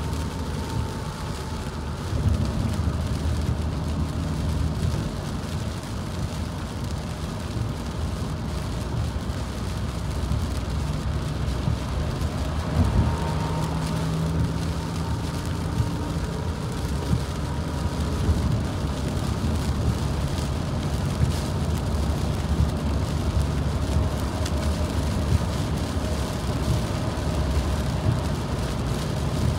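Car driving on a highway in the rain, heard from inside the cabin: a steady low road and engine rumble under an even rain hiss, with light knocks about every second and a half in the second half.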